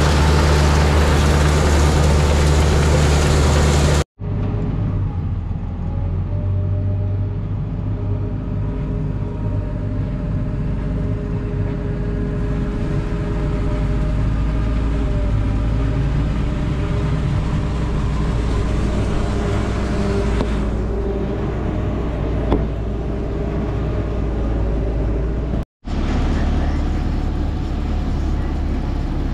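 Farm machinery running steadily, in three stretches that cut abruptly into one another. First a forage wagon's beaters and cross auger unloading chopped corn silage. From about four seconds in, a tractor engine and a self-propelled forage harvester chopping corn, a duller steady drone. Near the end, a Miller Pro 5300 forage wagon unloading into a Badger silage blower.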